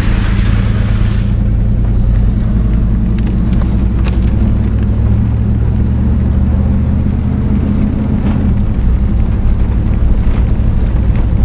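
1995 GMC Suburban's engine running steadily as the truck rolls slowly along a dirt track, heard from inside the cab as a low drone. The engine note shifts a little about eight seconds in. A brief hiss comes through in the first second.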